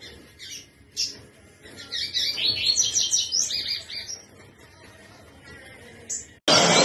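Double-collared seedeater (coleiro) singing: a few short high call notes, then a fast run of high song notes lasting about two and a half seconds, then one more short note. Near the end a sudden loud, steady rush of noise cuts in.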